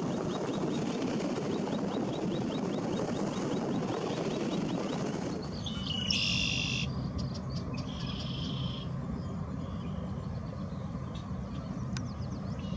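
Small birds calling over steady outdoor background noise: a rapid series of faint high ticking notes in the first half, then a louder, clearer high call about six seconds in and a shorter one a couple of seconds later.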